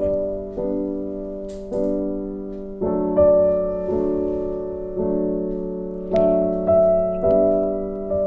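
Background piano music: slow chords, each struck and left to fade before the next, about once a second.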